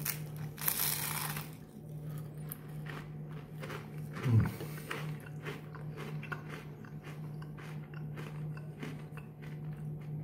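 A crispy fried spring roll is bitten into with a loud crunch, then chewed with a steady run of small crunches. A short hummed 'mm' is heard about four seconds in.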